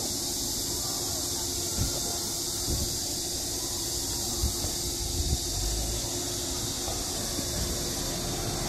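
A steady high-pitched hiss with no breaks, with a few soft knocks and a brief low rumble of wind on the microphone about halfway through.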